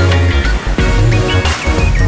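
Background music: a band track with a heavy bass line, a steady beat and a bending lead melody.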